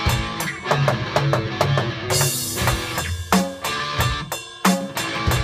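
Electric guitar and an electronic drum kit playing together: picked single guitar notes over a steady drum beat, with a cymbal crash about two seconds in.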